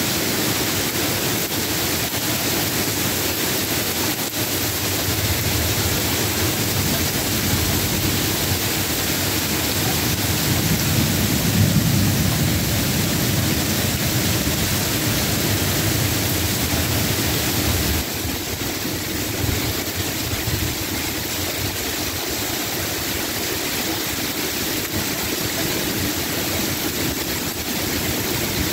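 Heavy rain pouring steadily, a dense even hiss, with a low rumble swelling and fading in the middle. About two-thirds through the hiss drops a little in level and brightness.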